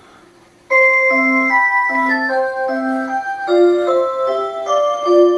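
Melody mantel clock playing its built-in tunes in clear electronic chime-like notes. One tune has just ended. After a short pause in the first second, the next tune starts as a string of held notes stepping up and down.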